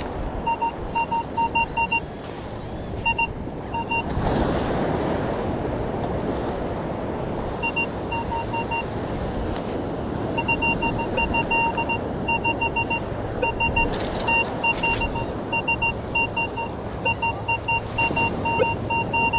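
Metal detecting pinpointer beeping in quick trains of short pulses at one steady pitch, signalling metal close by in the sand. Steady surf and wind noise run underneath, swelling about four seconds in.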